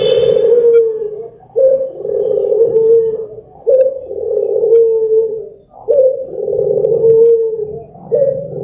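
Domestic ringneck dove (puter) cooing: a string of long, drawn-out coos, each about two seconds, following one another with hardly a pause.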